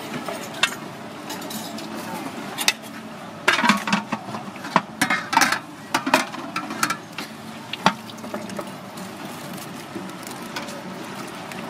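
Metal ladle clinking and scraping against a large aluminium pot as curry is scooped out and served, with a cluster of sharp clinks in the middle, over steady background noise.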